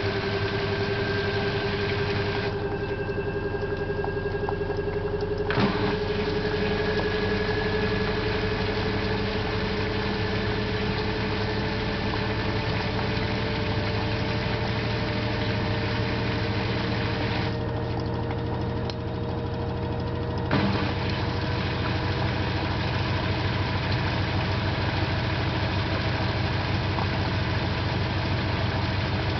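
LG 12B8ND washing machine on its spin cycle: a steady hum with a whine that rises slowly in pitch, and two sharp clacks about fifteen seconds apart. This is the unwanted clicking during spin, which comes from the lower right of the machine, with clothes in the drum, and does not occur when the drum spins empty.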